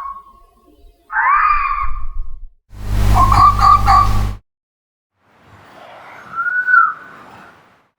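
Fox calling: short, harsh screaming calls that arch up and down in pitch, three separate ones after the tail of another, with a low hum under the middle one and a pause of about a second before the last, fainter call.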